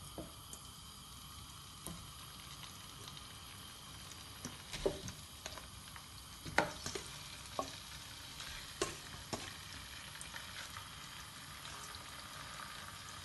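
Raw chicken legs going into oil in a non-stick wok: a faint, steady sizzle that grows a little as the pan fills, with a few sharp taps and splats as pieces land, the loudest about five seconds and six and a half seconds in.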